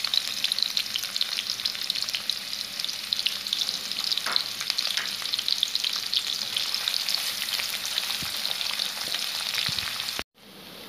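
Chopped onions frying in hot oil in an aluminium pot: a steady sizzle dense with small crackles and pops. It cuts off abruptly near the end.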